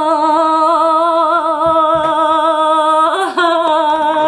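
A woman's voice singing one long held note with vibrato. It breaks briefly about three seconds in, then holds the note again.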